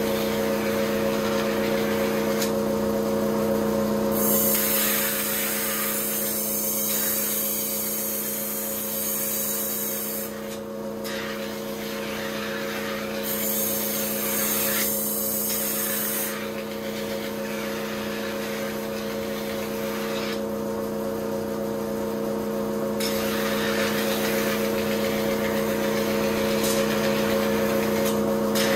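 Kitchen knife being ground on a motor-driven sharpening wheel. The machine hums steadily throughout, and three stretches of loud hissing grinding come when the blade is pressed to the stone: about four seconds in, around thirteen seconds, and again in the last five seconds.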